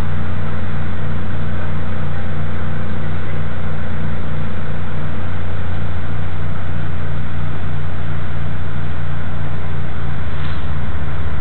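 Steady, loud low hum with an even hiss above it, heard inside a train carriage; a brief click about ten seconds in.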